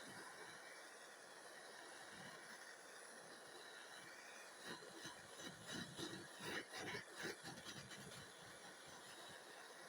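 Soldering torch flame hissing steadily and quietly while silver is heated for soldering. About halfway through, a short run of faint irregular clicks and crackles.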